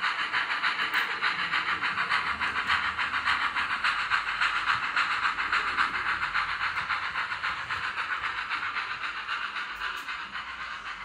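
Sound-fitted OO-gauge model of a GWR Manor 4-6-0 steam locomotive, its LokSound 5 decoder playing steady steam exhaust chuffs through the model's speaker at about four chuffs a second. The chuffing slowly fades as the model moves away.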